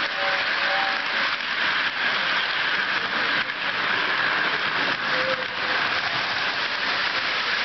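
Steady rolling hiss and rumble of a model train running on three-rail track, heard from a camera riding on one of its cars.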